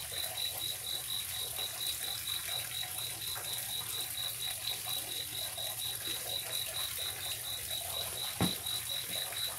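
Cricket chirping steadily in a high, even pulse of about five chirps a second, with one short thump near the end.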